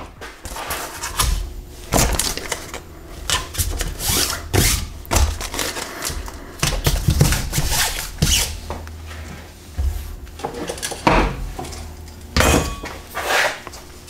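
Irregular knocks, taps and rustles of parts being handled and set down on a wooden workbench: metal cups with wire bundles, a sheet of cardboard and a two-part epoxy syringe. A low steady hum runs underneath.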